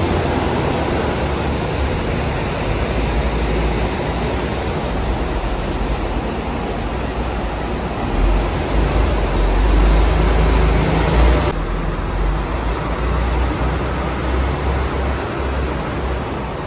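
City buses running in a bus interchange, a steady low engine rumble that swells a little past the middle. About two-thirds of the way through it changes to street traffic with a bus passing.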